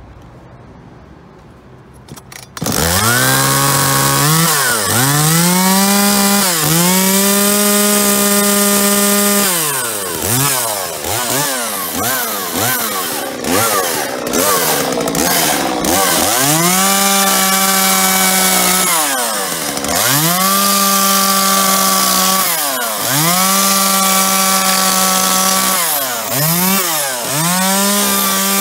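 Kioritz CSV3200 34cc two-stroke chainsaw catching about two and a half seconds in after a few clicks. It is then revved again and again: it climbs to a steady high speed held for two or three seconds, then falls back to idle. The revs are uneven for several seconds in the middle.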